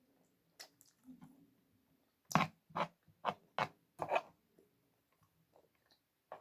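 Close-up eating sounds: a run of about five loud, crunchy chews over two seconds, starting about two seconds in, with faint mouth clicks around them.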